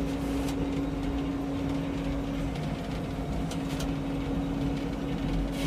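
Frick 01-C circular sawmill running, a steady machine drone holding one constant pitch, with a few faint ticks.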